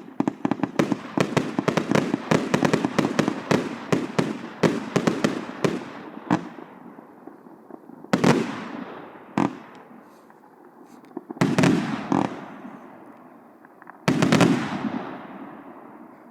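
Compound fireworks cake (140 shots, 1.0–1.2 inch tubes) firing: a rapid run of many sharp reports for about six seconds, then a handful of single loud bursts spaced a second or more apart, each echoing as it fades.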